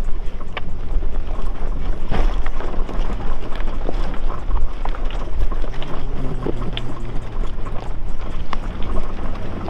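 Nissan Pathfinder SUV engine running with a steady low drone as it crawls over rocks, with tyres crunching and scattered sharp knocks and clicks from stones.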